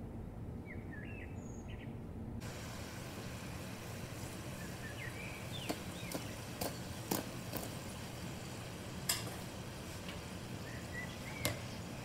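Samosas deep-frying in a pot of hot oil: a steady sizzle that sets in about two seconds in, crossed by a handful of sharp clicks. Birds chirp briefly in the first two seconds and again now and then.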